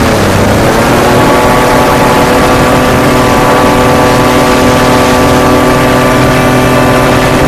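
Racing hovercraft's engine and propeller running loud at steady high revs; the pitch dips briefly and climbs back about a second in, then holds steady.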